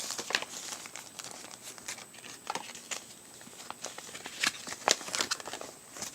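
Packaging being handled: irregular crinkling and rustling with small clicks and taps, as an instruction sheet is taken out.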